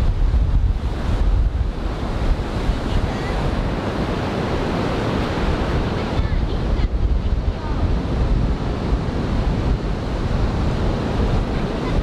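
Ocean surf breaking from a typhoon swell, a continuous wash of waves, with wind buffeting the microphone.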